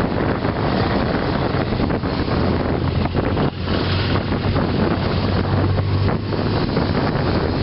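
A procession of BMW motorcycles riding past one after another, their engines running in a steady low drone, mixed with heavy wind buffeting on the microphone.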